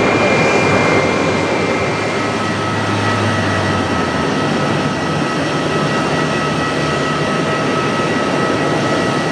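Steady jet airliner engine noise: a broad rushing sound with a high, steady whine, the whine shifting to a lower pitch about two seconds in.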